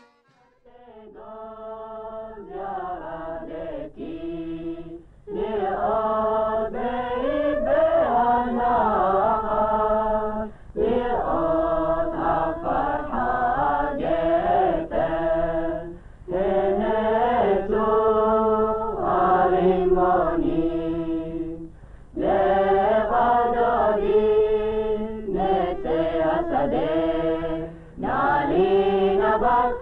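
Voices chanting a melody together in repeated phrases of about five seconds, with short breaks between, fading in over the first few seconds. The sound is thin and dull, from an old film soundtrack, with a faint hum underneath.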